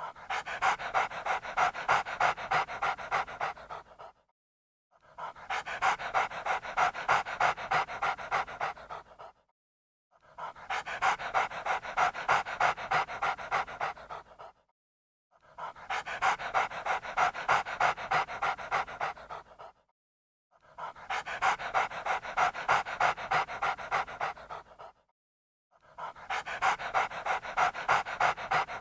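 A dog panting fast, several quick breaths a second, in runs of about four seconds separated by one-second pauses; the run repeats six times.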